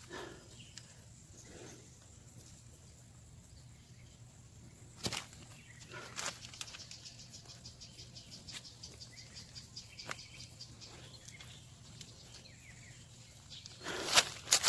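Faint, fast, steady insect trilling, with occasional soft knocks and rustles from digging potatoes out of garden soil. Near the end comes a louder burst of scraping and knocking.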